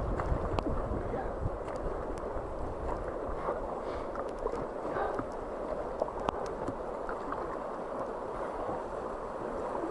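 Fast river water rushing and splashing past an inflatable raft, a steady churning rush with scattered light ticks.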